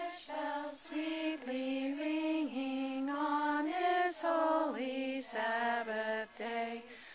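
One voice singing a song about church bells, unaccompanied, in held notes that step up and down in pitch.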